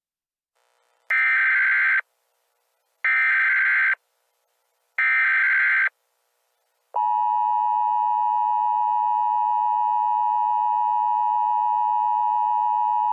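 Emergency Alert System alert opening: three short bursts of SAME header data tones, about a second apart, then the steady two-tone EAS attention signal starting about seven seconds in and holding to the end.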